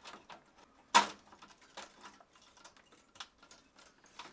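A sharp click about a second in, followed by a few fainter ticks: a defrost heater retaining clip being hooked behind a refrigerator evaporator coil and pressed into place.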